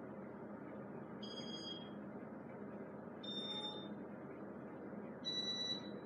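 Casablanca Artisan ceiling fan's IntelliTouch control beeping in demo mode: three short high beeps about two seconds apart, each a little higher than the one before, over a steady background whir.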